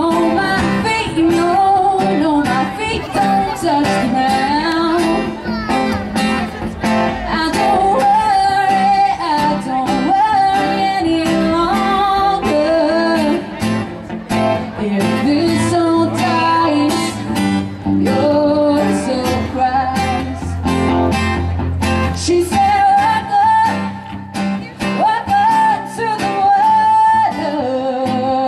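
Live song played on a strummed acoustic guitar and an electric guitar, the electric guitar carrying a bending melodic line.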